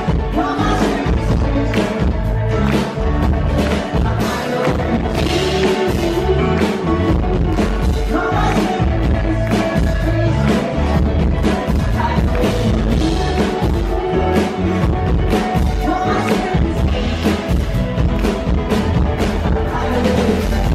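Live band playing a song, with a man singing lead over a drum kit, violin and upright bass, with the room's echo and crowd.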